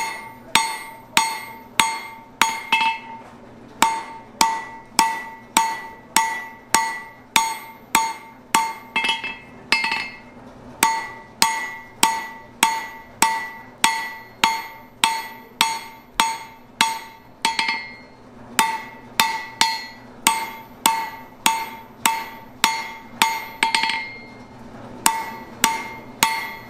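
Hand hammer striking red-hot round steel rod on an anvil, about two blows a second with a ringing tone after each and a few short pauses: the steel is being drawn out to a long, thin taper.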